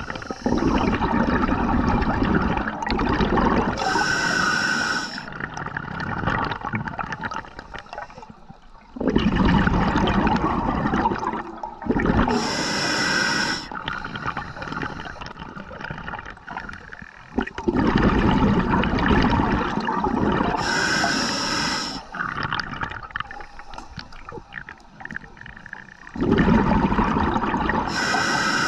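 Scuba diver breathing through a regulator underwater: a short hissing inhale through the regulator, then a long rush of exhaled bubbles, repeating about every eight seconds, four breaths in all.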